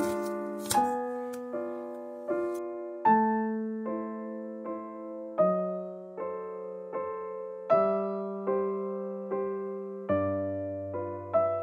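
Slow, gentle solo piano background music, a note struck about every three-quarters of a second and left to ring and fade.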